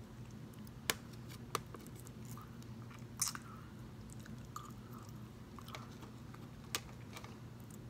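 Close-up chewing and soft mouth sounds of a person eating, broken by four sharp clicks.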